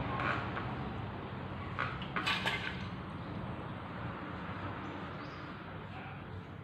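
A few light metallic clinks and clatters of tools or engine parts being handled, loudest about two seconds in, over a low background hum that slowly fades.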